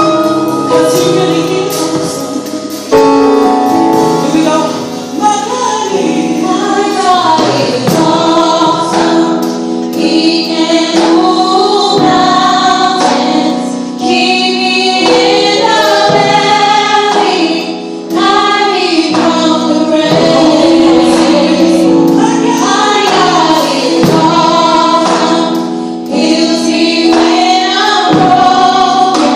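Live gospel song: a female lead singer belting the melody with a small group of backing singers answering in harmony, over sustained instrumental accompaniment.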